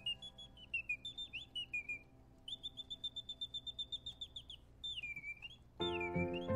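Antique singing bird box: the mechanical bird's bellows-driven whistle sings a run of sliding chirps, then a fast even trill, then swooping falling-and-rising calls. Background music comes in near the end.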